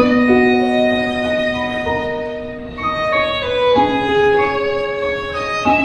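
Instrumental introduction to a slow wedding ballad, before the vocal starts: a violin plays a slow melody of long held notes over soft accompaniment.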